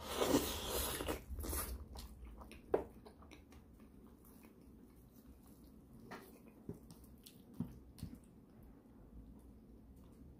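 Close-miked mouth sounds of a man biting into and chewing braised pork leg meat: loudest over the first two seconds as he takes a mouthful, then quieter chewing with scattered smacks and clicks.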